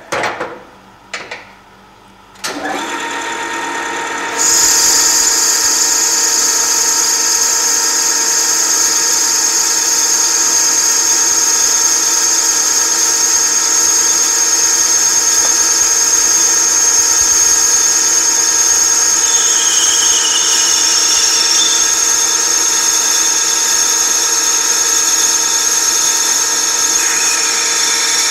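An industrial lathe turning brass. A couple of short knocks come in the first second or so. The machine then starts with a steady hum of several tones about two and a half seconds in, and a loud, high whine joins it about four seconds in and holds steady.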